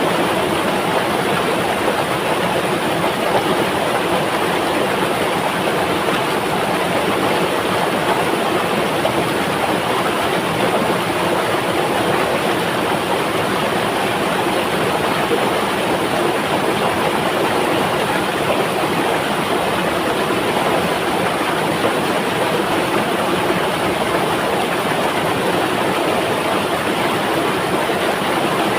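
River water flowing, a steady, unchanging rush of water noise.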